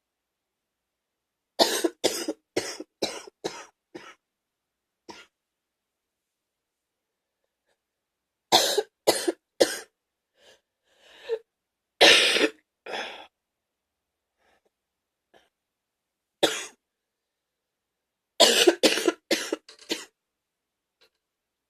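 A person's wet, gaggy cough coming in fits: a run of about six quick coughs near the start, another cluster with one loud hack around the middle, a single cough, and a final run of about six, with silent pauses between fits.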